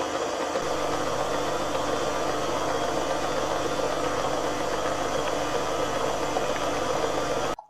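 Electric stand mixer running steadily, its beater whipping vanilla buttercream frosting in the metal bowl during the final mix to make it fluffy. The motor noise stops abruptly near the end.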